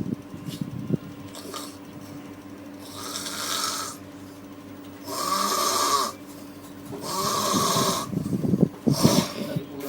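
Snoring: low rasping snores near the start and again near the end, with three long, hissing breaths in between, each about a second long and roughly two seconds apart.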